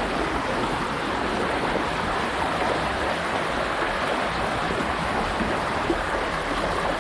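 Floodwater rushing steadily, an even, unbroken wash of water noise.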